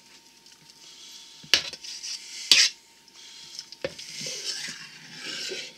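A kitchen knife stirring chopped cabbage salad in a stainless steel mixing bowl: the leaves rustle steadily, and the blade clanks loudly against the bowl twice, about a second apart, then once more softly.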